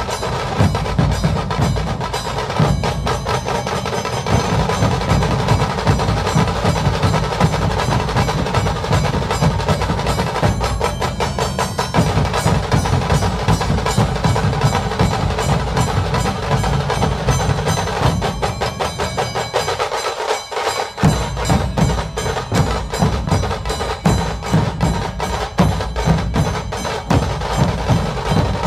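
Music with dense, fast percussion. The bass drops out for about a second roughly twenty seconds in.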